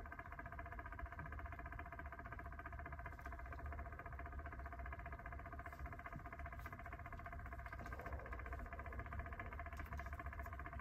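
Faint steady hum with a low drone and a few held tones, unchanging throughout: background machine or room noise.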